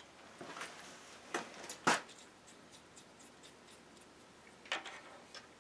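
A few light, separate clicks and knocks of metal parts being handled, the loudest about two seconds in, over quiet room tone.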